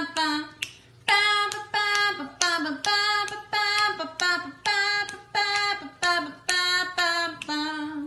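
A high singing voice on a short melody, note after note about every half second or so, each note stepping down in pitch at its end. It breaks off abruptly at the end.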